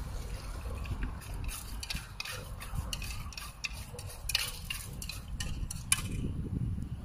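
Water poured from a plastic bottle into a small metal camping pot, then the pot handled and swirled, with irregular clinks and scrapes of metal. A low rumble of wind on the microphone runs underneath.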